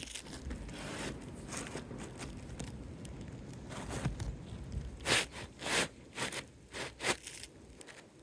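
A replacement asphalt roof shingle being handled and scraped against the shingles on the roof: gritty rustling and scraping, with several short, sharp scrapes in the second half.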